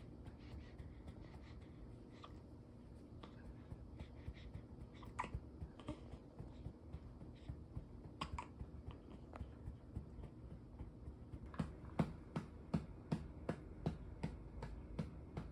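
A hand patting a newborn baby held upright against a parent's chest: a few scattered soft pats at first, then a steady run of about two to three pats a second near the end, done to soothe and settle the baby.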